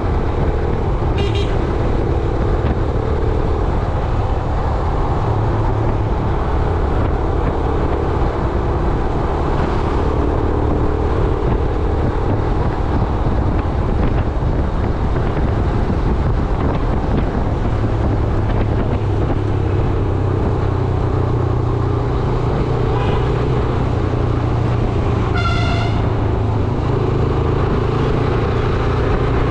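Yamaha YBR 125G's single-cylinder four-stroke engine running steadily under way amid road traffic. A vehicle horn toots briefly about a second in, and another honks near the end.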